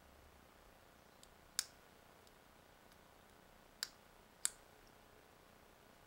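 Sharp plastic clicks from handling a PS2-style thumb joystick module and its removable cap: three distinct clicks, the last two less than a second apart, with a couple of fainter ticks between.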